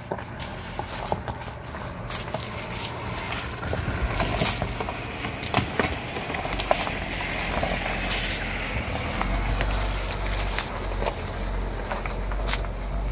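Jeep Wrangler Unlimited on 33-inch tires crawling past over a rocky dirt trail: a low engine rumble with the tires crunching and popping over loose stones, getting louder as it rolls close by.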